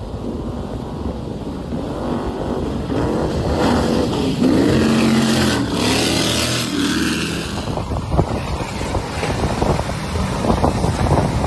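Cigarette go-fast powerboat's engines running hard as the boat passes close at speed, the engine note swelling and its pitch rising then falling between about three and seven seconds in. Wind and water noise take over near the end.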